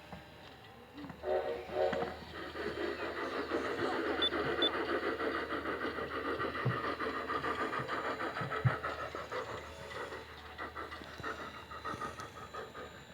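Bachmann K-27 model steam locomotive's sound system: a short whistle blast about a second in, then steady rhythmic chuffing that fades toward the end.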